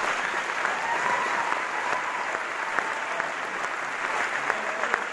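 Applause from a theatre audience, with the cast on stage clapping along: steady, sustained clapping with no break.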